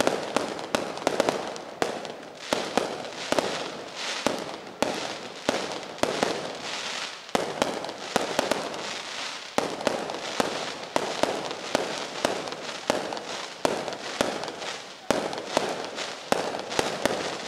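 Aerial fireworks bursting overhead in a rapid, continuous series of sharp bangs, each trailing off into echo.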